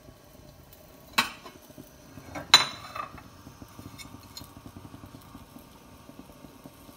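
Glass pan lid with a steel rim being lifted off a non-stick frying pan, clinking twice against it, the second clink louder and ringing briefly. Underneath, a faint steady crackle from the pan, where bread pizzas are toasting over low heat.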